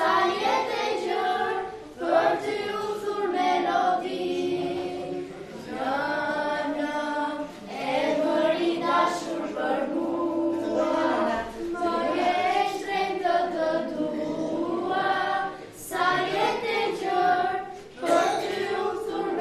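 A children's choir of girls singing a song together in phrases, with short pauses for breath between them.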